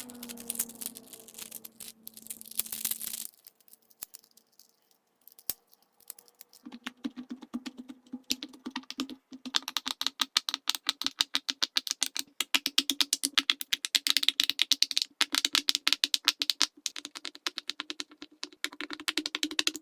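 Silicone pop-it fidget toy bubbles being pressed in quick succession, a rapid run of many small pops a second. The pops start after a few seconds of scattered clicks. A short stretch of music fades out near the start.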